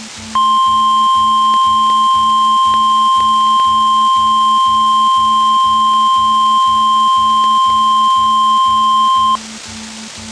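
NOAA Weather Radio's 1050 Hz warning alarm tone, heard on a weather radio's audio output during a Required Weekly Test. It is one steady, loud, unbroken tone that starts just after the opening and cuts off suddenly about nine seconds later. Under it and after it there is receiver hiss and a low buzz that pulses two or three times a second.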